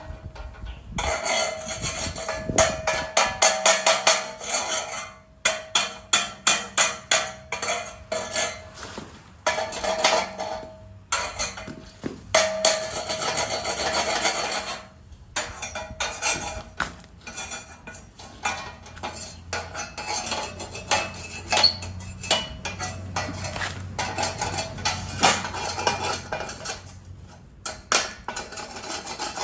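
Metal hand tools scraping and clinking against metal in quick repeated strokes, in runs broken by short pauses, with a faint ring from the metal.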